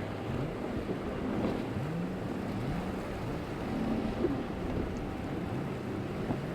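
Outboard boat motors running, their pitch rising and falling again and again as the throttle is worked through waves, over wind noise on the microphone and rushing water.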